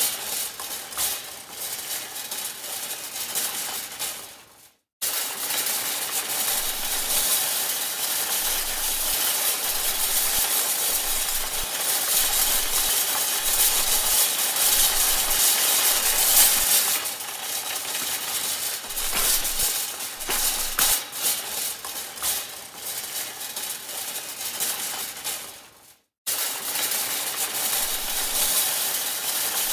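Supermarket shopping cart rolling, its metal basket and casters rattling and clattering continuously. The rattle fades and drops out briefly about five seconds in and again near the end, starting again abruptly each time.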